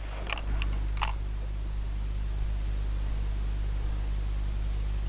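A few light metallic clicks from a rifle magazine being handled in the first second, then a steady low hum and hiss.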